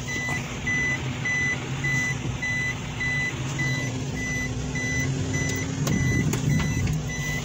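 Vehicle's reverse-gear warning beeper sounding in the cabin, a steady high beep about twice a second, signalling that reverse is engaged. Underneath, the freshly overhauled Suzuki K6A three-cylinder engine runs steadily as the vehicle backs up.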